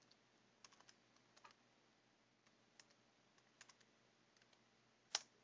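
Faint computer keyboard typing: scattered key clicks in small clusters, with one louder keystroke near the end.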